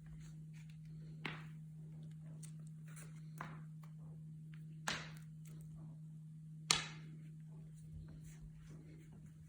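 Sphynx cats playing with a toy: scattered sharp knocks and taps, about five over the stretch, the loudest about two-thirds in, over a steady low hum.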